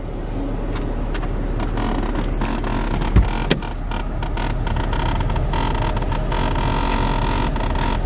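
Steady hum of a parked car running, with rubbing and creaking from the camera being handled, and a sharp thump about three seconds in; a steady whine joins in about halfway through.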